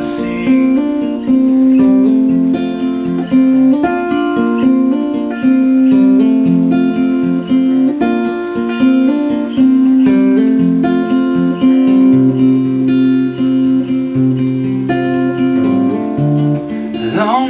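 Solo acoustic guitar playing an instrumental passage of a folk song: chords picked and strummed with notes ringing on, lower bass notes coming in over the last few seconds.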